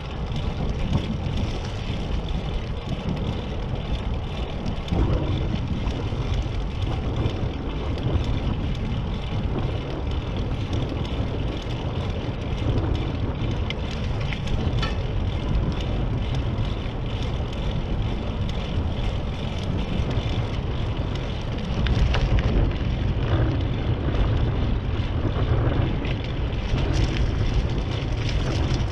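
Wind buffeting the microphone of a camera riding on a moving bicycle, with rumble from the tyres on asphalt. It is steady and noisy throughout and gets louder about three-quarters of the way through.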